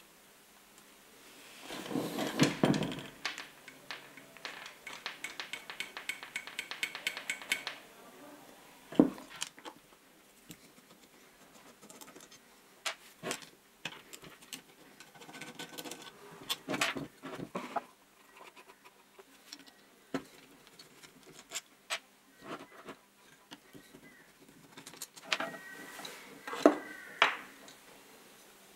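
Metal parts of an old Shinko right angle drill being taken apart by hand, with clicks, clinks and knocks of the housing and screwdriver. There is a clatter about two seconds in, a run of fast, even ticks for a few seconds after it, and a short squeak near the end.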